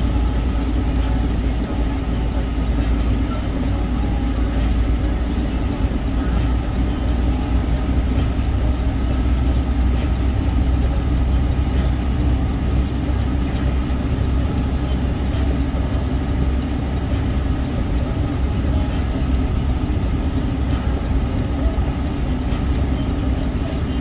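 Steady road noise from inside a moving car: the engine and tyres running on a wet, snow-covered highway.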